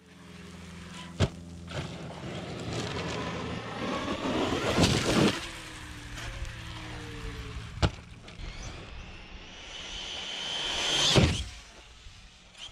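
Arrma Typhon RC buggy's brushless electric motor whining and spinning up, with two sharp knocks from impacts on landing. A whine rises and swells into a loud rush as the buggy speeds past close by, near the end.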